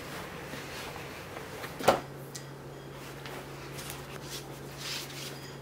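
Handling noises over quiet room tone: one sharp knock about two seconds in, then faint paper rustling near the end as a stack of printed photographs is picked up and handled. A low steady hum sets in with the knock.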